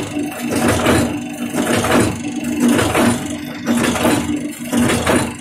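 Ten-die tablet press machine running, its punches working in a repeating cycle of about one stroke a second over a steady motor hum.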